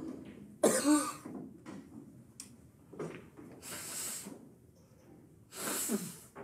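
Wordless breathy sounds from a person close to the microphone: a short voiced sigh or laugh about a second in, then two long exhales, the last ending in a falling voiced note.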